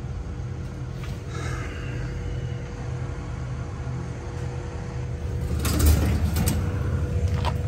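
A steady low rumble with a faint steady whine, and a short cluster of knocks and rattles about six seconds in.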